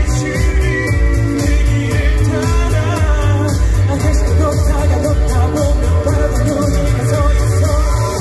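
A male singer singing live into a microphone over a backing track with a strong, steady bass beat, through a PA system.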